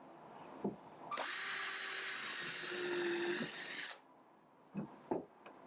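Cordless drill running for about three seconds, drilling into a wooden bracing for screw pilot holes, with a steady high whine that stops abruptly. Two light knocks follow near the end.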